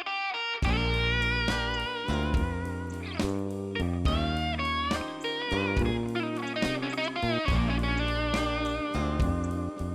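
Background music led by an electric guitar, with bending notes over a steady beat.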